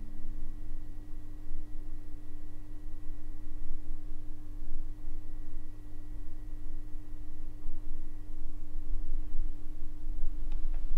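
Steady electrical hum with a steady pure tone over it and a fainter high whine that fades out about eight seconds in; a couple of faint clicks near the end.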